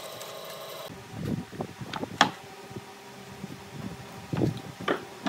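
Bandsaw motor running without cutting for about a second. Then comes a series of sharp knocks and light clatter as pine pieces are set down and shifted against each other on a wooden workbench, loudest about two seconds in.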